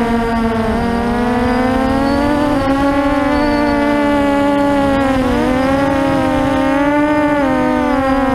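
QAV400 quadcopter's electric motors and propellers whining, several close pitches that rise and fall together as the throttle changes.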